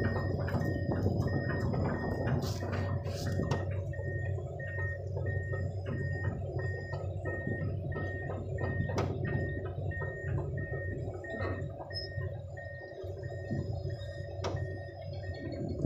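Truck engine running with a steady low hum, heard from inside the cab, while an electronic beeper sounds about twice a second. A few sharp clicks or knocks come in the first few seconds and once about nine seconds in.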